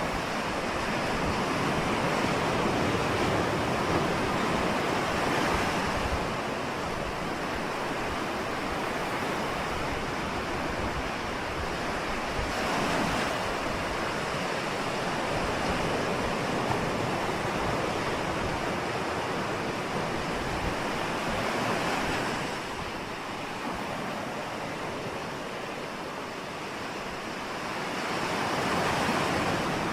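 Ocean surf: a continuous rush of waves breaking and washing in, swelling and easing every several seconds.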